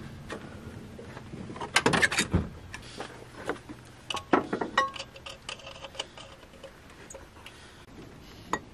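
Scattered metallic clicks, clinks and knocks of hand tools and metal parts being handled while a transmission is fitted into a car, coming in small clusters with short gaps between them.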